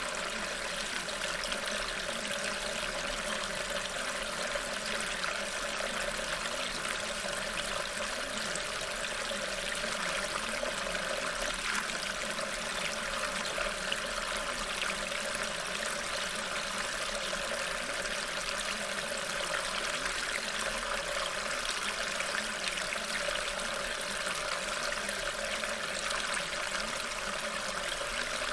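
Steady, unbroken running-water sound like a stream, holding one level throughout. It is the masking track of a subliminal recording, with the affirmations embedded beneath it.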